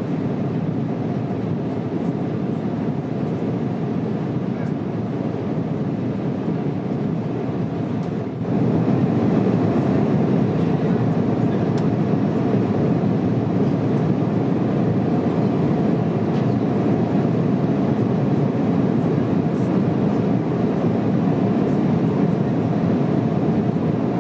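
Steady jet airliner cabin noise inside a Boeing 777-200ER: a deep rumble of engine and airflow. After a brief dip about eight and a half seconds in it becomes louder and stays so.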